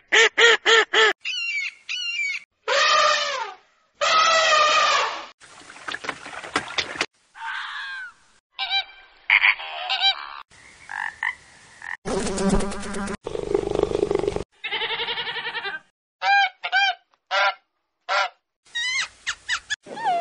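A string of short animal-call recordings cut back to back, each lasting a fraction of a second to a couple of seconds, with the calls changing in pitch and character from one clip to the next.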